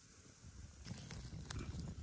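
Wood cooking fire crackling: a few sharp pops over a low rumble that comes in about half a second in.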